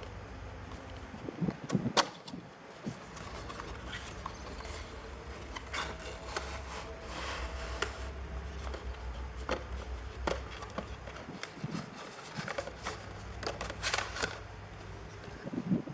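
Small packaging being handled and opened: irregular clicks, taps and rustles, some sharper than others, over a steady low hum.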